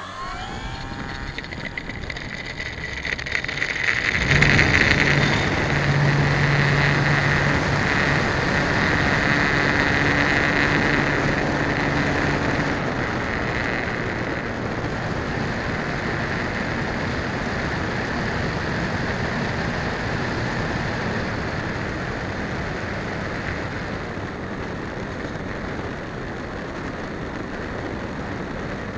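E-flite Apprentice S15e's brushless electric motor and propeller, heard from the onboard camera: the whine rises in pitch as the throttle opens for takeoff. About four seconds in it jumps to a loud, steady whir, mixed with wind rushing over the microphone, and this carries on through the climb-out and flight.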